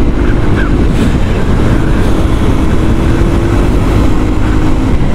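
Motorcycle engine running at a steady cruise, with heavy wind rumble on the microphone from riding.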